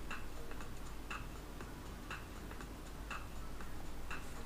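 Clock ticking faintly and evenly, about once a second.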